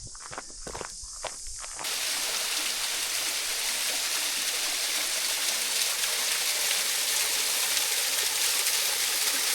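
Footsteps for about two seconds, then a sudden change to a steady rush of flowing water, a stream or cascade running strongly.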